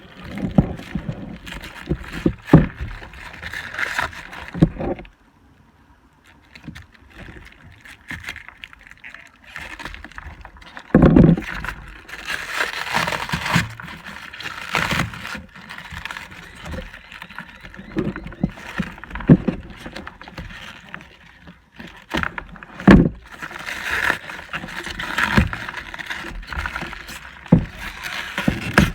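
Hands working through packaging: rustling wrap and cardboard, with irregular knocks and clatters as small plastic mini wheelie bins are handled and unpacked.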